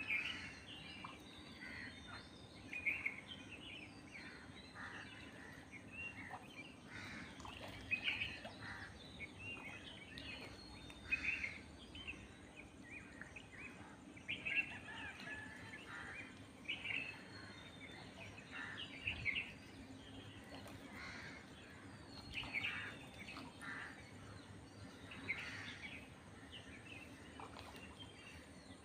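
Birds chirping in short, irregular calls, a few louder ones standing out, over a low steady hum.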